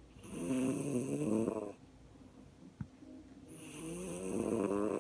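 A pet snoring: two long snores, the second swelling slowly to its loudest near the end, with a short click between them.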